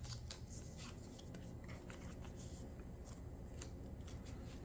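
Faint rustling and scraping of a trading card being slid into a plastic card sleeve, a scatter of short soft scratches.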